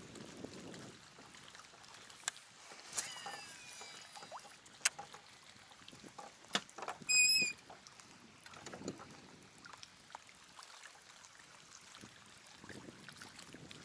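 Water lapping gently against a small boat's hull, with a few sharp clicks and a short high-pitched tone about seven seconds in.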